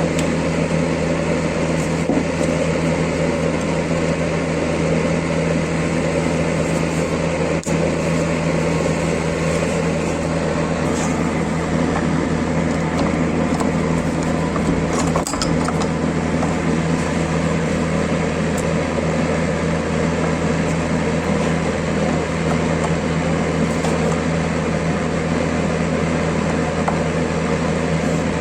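An electric power tool's motor running steadily with a strong low hum and whirring noise, briefly dipping about eight seconds in, with a short knock about halfway through.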